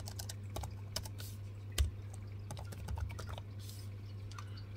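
Typing on a Dell laptop keyboard: a run of quick key clicks through the first three seconds or so, one key pressed harder about two seconds in, over a steady low hum.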